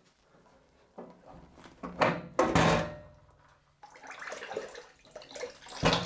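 Steel panel radiator lifted off its wall brackets: two metallic clunks about two seconds in, the second ringing briefly, then a steady trickle of water starting to run out of the radiator into a plastic bowl, and another clunk near the end.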